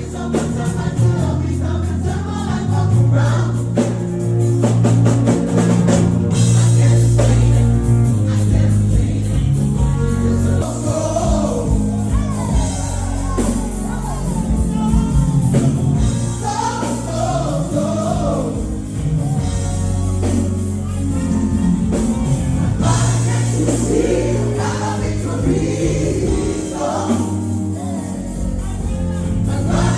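Gospel music with a choir singing over a steady bass line.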